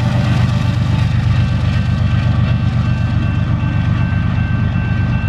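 Canadian Pacific GE ES44AC diesel locomotive CP 8868, the rear distributed-power unit of a long grain train, running past and moving off. It gives a steady, loud, low drumming from its engine along with the sound of wheels on the rails. A thin, steady high tone comes in about halfway through.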